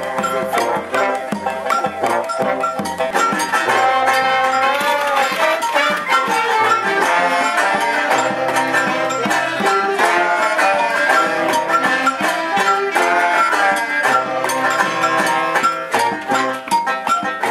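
A live brass band with percussion playing an upbeat tune: trombone, tuba, clarinets and banjo over a drum beaten with sticks.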